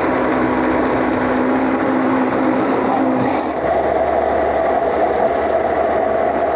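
Electric blender motor running steadily, blending grated cucumber with its water into juice. About halfway through, the hum shifts to a higher pitch.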